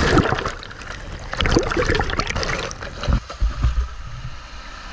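Shallow seawater thick with floating sargassum seaweed sloshing and splashing, in irregular splashes that are loudest in the first half and ease off toward the end.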